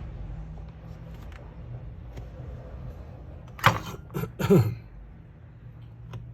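A steady low hum, broken about halfway through by three short voice-like sounds in quick succession, each falling in pitch.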